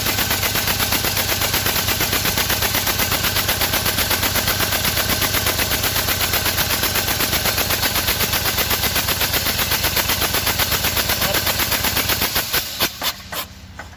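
Deutz TCD 2011 four-cylinder diesel engine running with a misfire, a loud, even pulsing beat of about six or seven a second: cylinders 2 and 3 are not firing, and swapping an injector has not cured it. Near the end the beat breaks into a few separate knocks and dies away as the engine stops.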